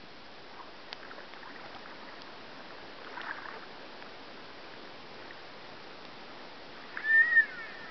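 Faint steady hiss of river water, then about seven seconds in a loud, high, wavering buzz that rises and falls over half a second: a spey reel's click drag giving line as a hooked sockeye runs.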